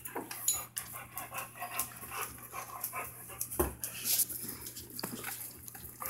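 Dog panting while it plays, with scattered short clicks and scuffs and one thump about three and a half seconds in.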